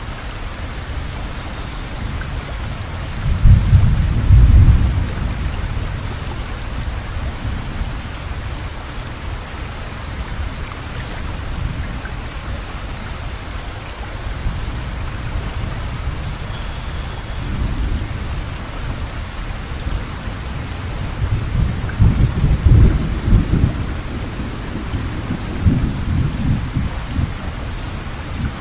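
Steady rain falling, with thunder rumbling low twice: a short roll a few seconds in and a longer, uneven roll near the end.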